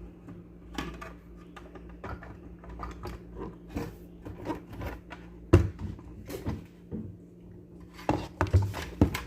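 Blender parts being handled and fitted back in place: a run of small clicks, taps and knocks, with a sharper knock about five and a half seconds in and several more near the end, over a steady low hum.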